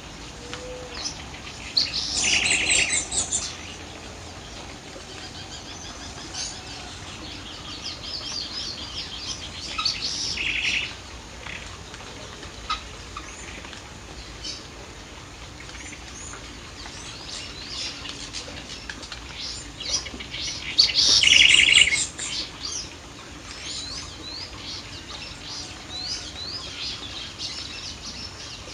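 Several birds singing and chirping, with two loud, fast trilled phrases, one about two seconds in and another about twenty-one seconds in.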